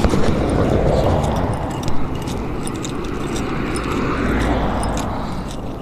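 A vehicle passing: a rush of engine and road noise that swells and fades twice.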